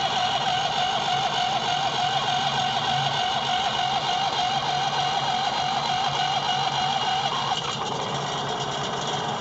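2006 Huskee riding lawn tractor's engine at a key start: a steady mechanical drone with a slightly wavering whine, which eases a little about three-quarters of the way through.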